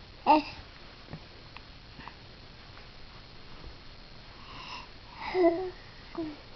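A baby's short, breathy, pitched sounds as it tries to sneeze but can't get the sneeze out. There is a sharp one just after the start, a longer run around five seconds in, and a small one just after.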